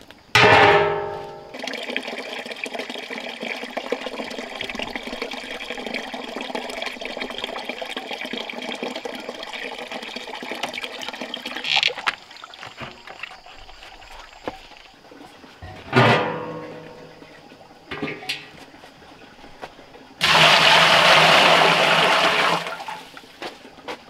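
Water running from a tap into a plastic bucket, a steady rush for about ten seconds. Later come a couple of knocks, and near the end a short, loud rush of water.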